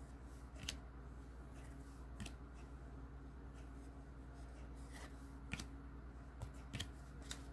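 Baseball trading cards being flipped through by hand: faint, scattered clicks and slides of card stock, about half a dozen over several seconds, over a steady low hum.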